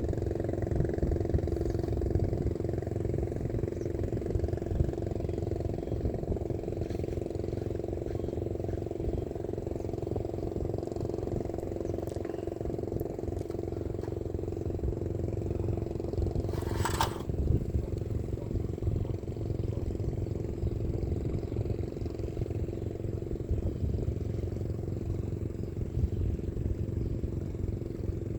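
An engine running steadily at an unchanging speed, a constant low drone. A single short sharp click comes about 17 seconds in.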